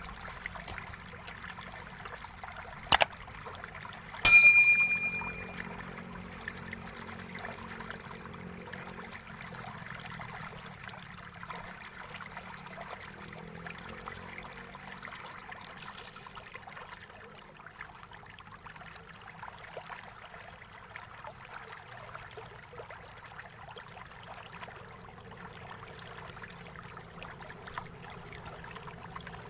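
Faint clicks and scratches of a screwdriver backing out the bottom-case screws of an Axioo MyBook 14E laptop, over a steady hiss. A short click about three seconds in is followed by a single loud, bright metallic ding that rings for about a second.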